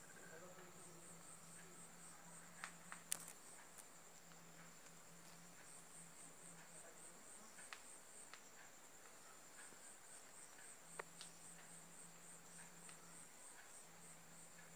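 Faint crickets chirping: a steady high trill with runs of quick pulsed chirps, about five a second, that come and go. A few sharp clicks stand out, the loudest about three seconds in.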